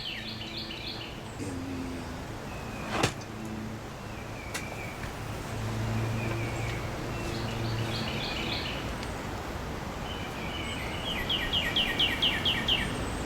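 Small songbirds giving quick trills of rapidly repeated high chirps several times over steady outdoor background noise, with one sharp click about three seconds in.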